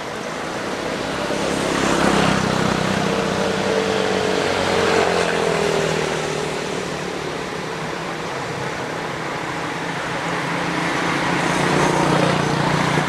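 A motor vehicle passing close by: the noise swells over the first two seconds, then the engine note falls as it goes past. Road noise builds again near the end.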